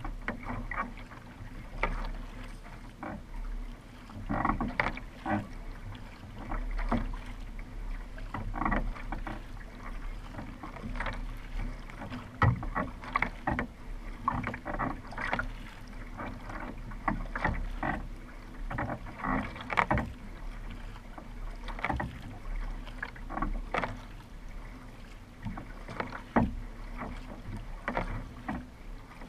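Double-bladed paddle strokes catching and splashing in the water beside a racing kayak, about one stroke a second, over a steady low rumble.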